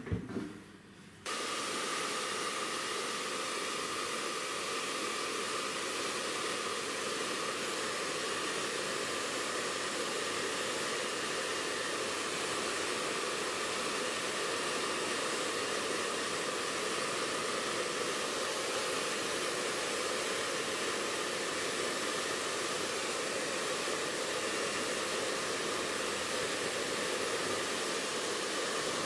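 A brief bump, then a hair dryer switches on about a second in and runs steadily: an even rushing hiss with a faint steady whine.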